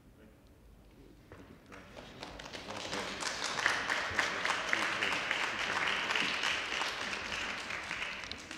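Audience applauding: the clapping starts about a second in, builds to a steady peak and fades out near the end.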